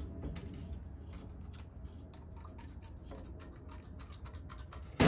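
Light, irregular clicks and ticks of a small metal hand tool working on an old McCulloch chainsaw, coming thickest around the middle.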